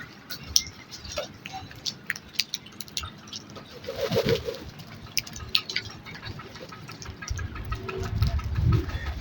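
Bird sounds: one short call about four seconds in among many scattered sharp clicks and taps, with a low rumble building near the end.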